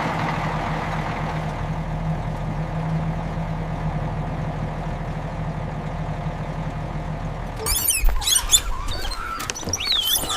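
A vehicle engine idling with a steady low hum. About seven and a half seconds in it gives way to a flurry of high, squeaky chirps that rise and fall quickly in pitch.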